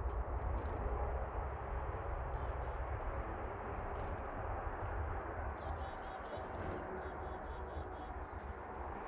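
Small songbirds chirping and calling in short high notes, with a quick run of notes about six seconds in, over a steady rumble of wind on the microphone.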